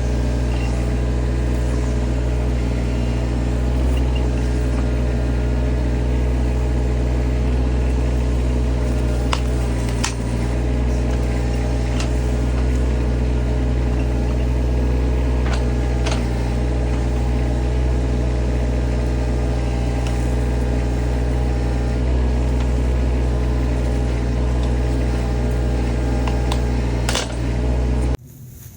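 Bobcat E20 mini excavator's diesel engine running steadily under work, with a few sharp knocks and clanks from the machine and ripper. The sound cuts off abruptly just before the end.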